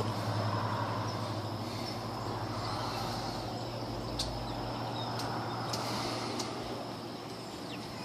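Outdoor background sound: a steady faint high insect chirring over a low, even hiss of distant ambience, with a few faint short ticks about halfway through.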